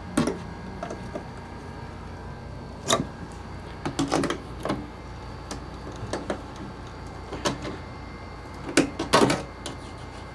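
Irregular knocks and clatters of a wooden shipping crate being pried and pulled apart by hand, about a dozen separate hits with the loudest cluster about nine seconds in.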